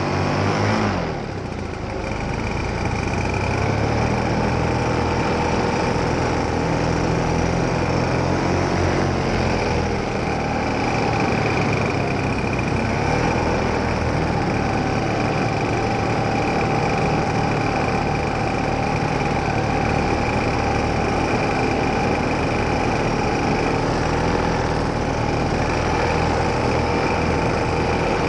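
Paramotor engine and propeller running steadily in flight. About a second in the throttle eases off briefly, the pitch and level dropping, then it comes back up to a steady drone.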